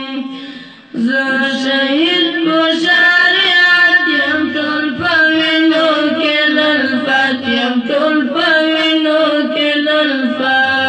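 A boy singing solo into a microphone with long held, wavering notes and no instruments, pausing for a breath just before a second in.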